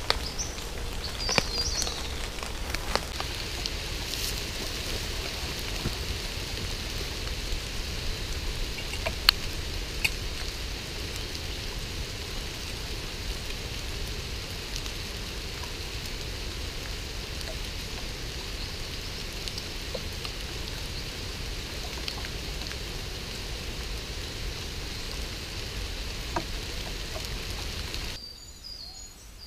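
Steady light rain falling in woodland, an even hiss, with a few short bird chirps and clicks in the first seconds. It drops away near the end.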